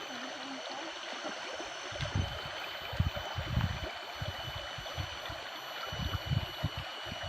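Steady running water, a small stream or channel flowing beside a rice field, with a thin steady high tone over it. From about two seconds in, irregular low knocks and rumbles come and go.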